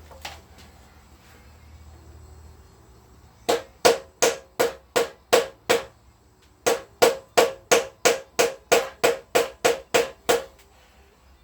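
Hammer blows on metal in two runs, about twenty strikes at roughly three a second with a short pause between, each ringing briefly. A seized, stubborn part is being knocked loose while stripping down a Honda C50.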